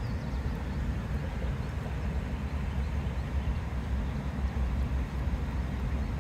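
Steady low outdoor rumble with a faint hiss above it, with no distinct splashes or other events.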